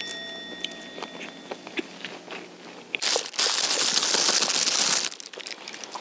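Loud crinkling and rustling for about two seconds in the middle, as something is handled or rummaged out, with light clicks and handling noises before it.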